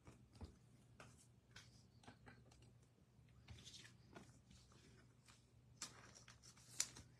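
Faint handling of baseball trading cards: scattered light clicks and short rustles as cards are slid and set down, with a sharper tap near the end.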